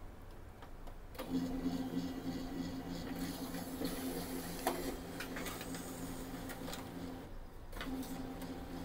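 HP LaserJet laser printer feeding and printing a page, its drive motor starting about a second in and running with a steady hum and scattered clicks. The motor pauses briefly near the end and then runs on. The page feeds through, a sign that the newly fitted Tray 2 pickup roller is now picking up paper.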